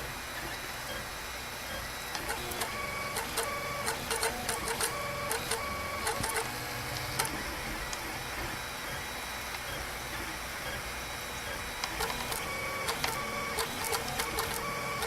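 Printrbot+ 3D printer running a print, its stepper motors whirring in short moves of changing pitch, with scattered clicks.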